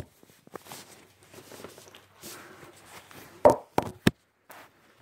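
Handling noise from a phone being carried and moved: rubbing and scattered soft knocks, with a loud thump about three and a half seconds in followed by two smaller knocks.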